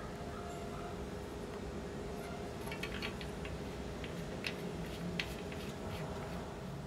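Steady background hum with a handful of light clicks and taps, a cluster about three seconds in and two sharper ones past the middle.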